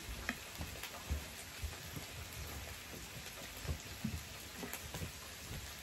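Samgyeopsal pork belly and meat slices sizzling on an electric tabletop grill plate: a steady crackling hiss, with a few faint clicks.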